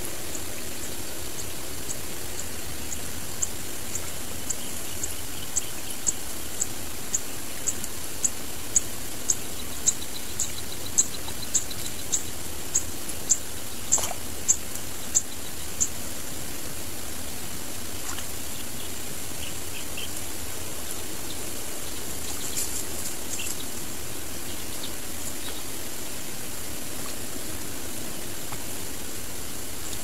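Steady outdoor background hiss, with a high, thin chirp repeated about twice a second through the first half, growing louder and then stopping.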